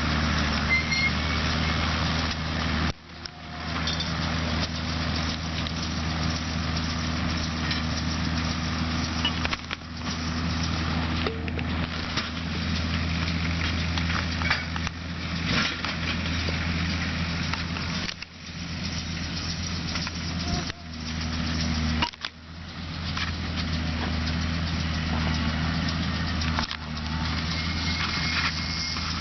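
Case IH Maxxum 140 tractor engine running steadily under a constant rushing, crackling noise. The sound dips sharply for a moment several times.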